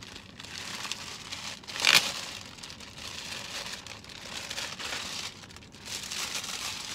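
Clear plastic bag crinkling and rustling as a pair of leather boxing bag mitts is worked out of it, with one sudden louder burst of crackle about two seconds in.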